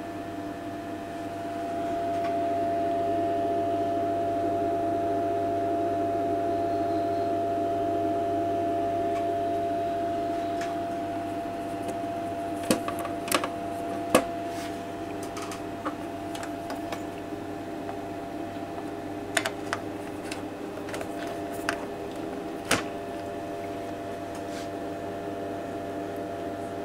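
A steady electrical hum from the bench test equipment, louder for the first several seconds, with a scatter of sharp clicks and taps partway through as the test probe leads are handled at the counter's input connector.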